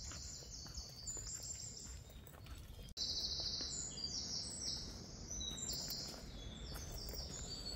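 Woodland birdsong: many short high chirping notes from small songbirds, over a steady low background noise. The sound gets abruptly louder about three seconds in.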